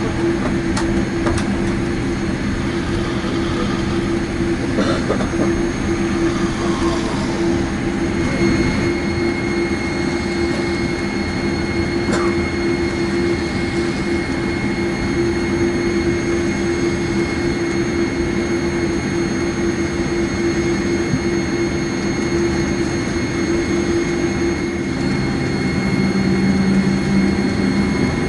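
Boeing 787-8's GEnx-1B jet engines running at low thrust, heard from inside the cabin as a steady hum with a constant tone. Near the end the engine note shifts and grows louder.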